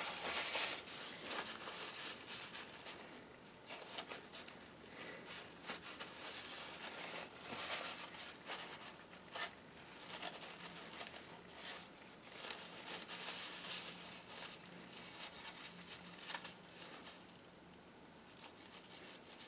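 Faint handling noises of hands working on laptop parts: light rubbing and crinkling with scattered small clicks and taps.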